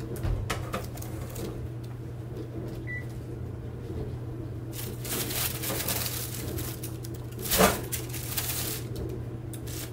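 Baking parchment rustling and crinkling as a freshly baked loaf is handled on it, with one louder crackle or knock about three quarters of the way through, over a steady low hum.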